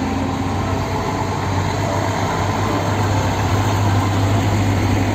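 Heavy diesel container truck's engine running with a steady low drone, with road traffic noise around it.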